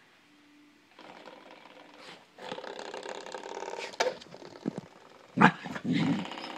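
Puppy growling and yapping as it attacks a doorstop. A fast rattling buzz comes in about two and a half seconds in, and a sharp hit comes at about five and a half seconds, followed by a short yap.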